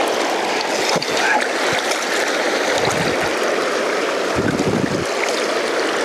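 Fast river water rushing steadily, with a few brief low bumps along the way.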